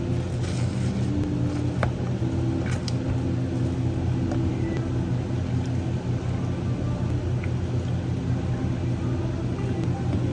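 A steady low machine hum with broken, pitched tones above it, and a few faint light clicks and taps.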